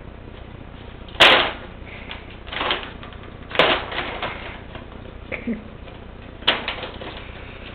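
Paper grocery bag crackling and rustling as a Sphynx cat pushes into it and moves about inside: four sharp crackles of paper, each trailing off in a short rustle.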